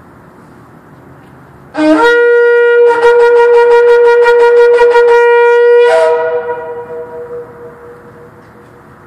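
A Yemenite shofar blast: about two seconds in, a short low note jumps up to a loud, steady held tone that pulses quickly for its last few seconds. It breaks briefly upward as it stops and echoes away over a couple of seconds in the concrete parking structure.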